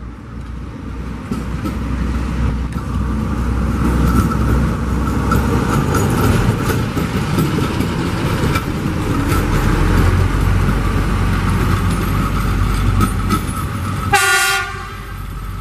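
Diesel engine of a Plasser & Theurer TG 80-4 track maintenance vehicle, with an Atlas rail excavator in tow, running as the pair roll past on the rails. The rumble and wheel rattle build over the first couple of seconds and then hold steady. A single short horn toot sounds near the end.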